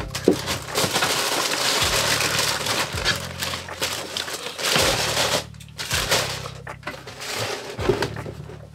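Tissue paper rustling and crinkling as a shoe is taken out of its wrapping in a cardboard shoebox, with a few soft knocks. The rustling is loud for the first few seconds, comes back briefly, and dies down near the end.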